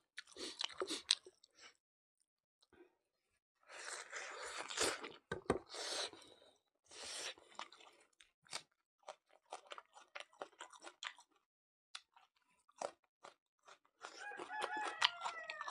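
A man chewing mutton curry and rice, eaten by hand, close to the microphone: wet mouth clicks and smacks, with louder stretches of chewing about four to seven seconds in. A rooster crows near the end.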